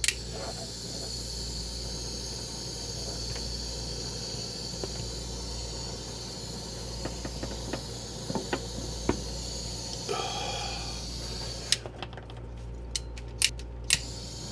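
Small handheld butane torch burning with a steady hiss, heating shrink tubing over freshly crimped wire terminals. The hiss stops about twelve seconds in, followed by a few light clicks.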